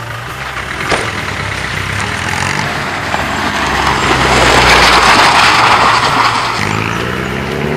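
Land Rover Defender engine running, then pulling away, with the crunch and spray of tyres on loose gravel swelling to the loudest part about halfway through. A single sharp knock about a second in.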